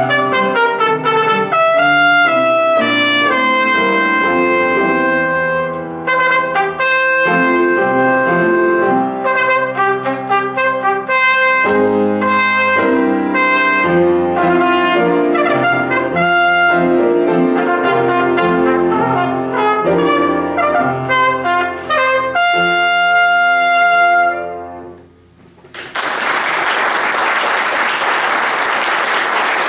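Solo trumpet with piano accompaniment playing a melody, ending on a long held note a few seconds from the end. After a brief pause the audience applauds.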